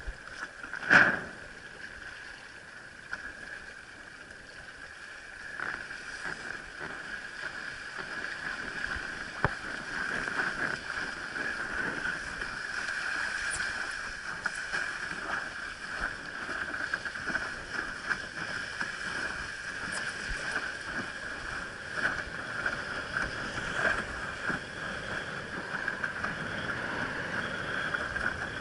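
Water rushing and splashing against a windsurf board sailing across lake chop, with small slaps and knocks, growing louder after the first few seconds. A steady high tone runs under it, and there is one loud splash or knock about a second in.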